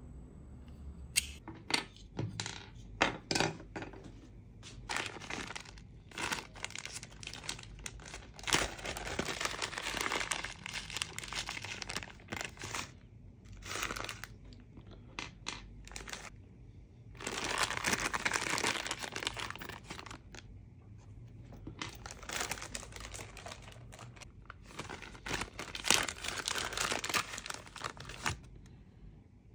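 Crinkling of a small clear plastic bag of M3 screws being handled and opened, in several spells of a few seconds each, with a few sharp clicks about two to three seconds in.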